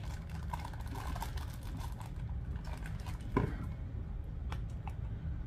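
Faint clicks and taps of a small plastic soy sauce cup being worked open by hand, with one sharper click about three and a half seconds in.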